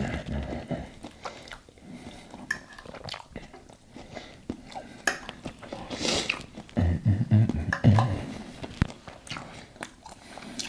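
Close-miked eating: chewing and mouth sounds, with short clicks of a fork against a plate.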